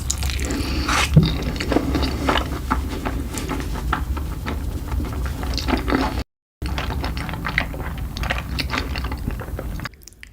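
Close-miked eating sounds: a person chewing and slurping noodles, with many quick wet smacks and clicks. The sound cuts out briefly about six seconds in, and it is quieter near the end.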